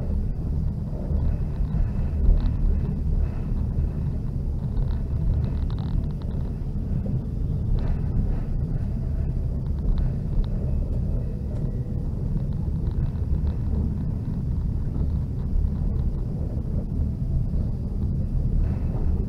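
Passenger train running, heard from inside a compartment car: a steady low rumble of wheels on rails, with faint clicks now and then.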